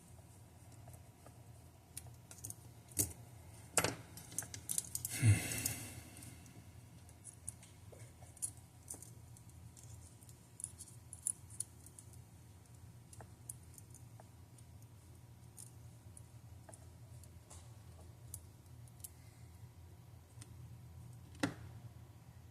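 Scattered small metallic clicks and taps of watch parts and tools being handled. They are busiest a few seconds in, and there is one sharper click near the end.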